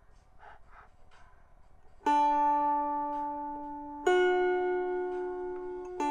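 Lyre strings plucked slowly, a note or two at a time about every two seconds, each left to ring and slowly fade. The first note comes about two seconds in, after a quiet start.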